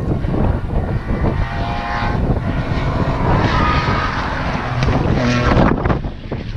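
Hillclimb race car's engine revving as it climbs past on the mountain road, its note shifting pitch several times and loudest about five seconds in, over heavy wind buffeting on the microphone.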